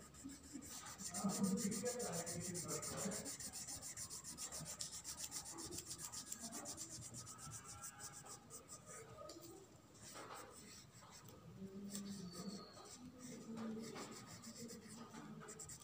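Green wax crayon rubbing across drawing paper in quick, repeated strokes as a shape is coloured in.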